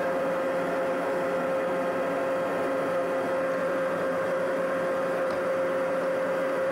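A steady mechanical hum holding one constant pitch, over a low whir.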